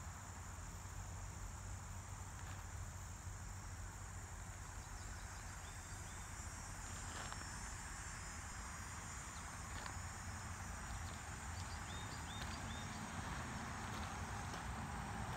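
Steady high-pitched chorus of insects over a yard in summer, with a low rumble underneath and a few short high chirps over it partway through.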